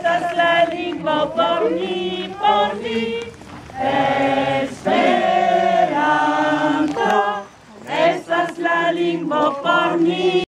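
A choir singing, several voices together, with some notes held long.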